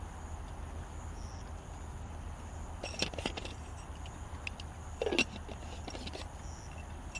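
Wood campfire crackling, with scattered sharp snaps and a louder pop about five seconds in, over a steady low hum.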